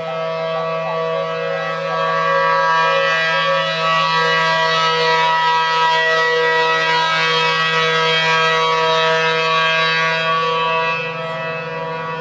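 ACA P-10 outdoor warning siren sounding at a steady pitch, growing louder about two seconds in and dropping back near the end.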